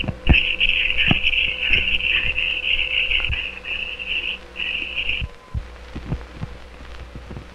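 Pen scratching on paper as a drawing is inked, a high scratchy sound in short strokes that stops about five seconds in. Old film soundtrack crackle, clicks and a steady hum run underneath.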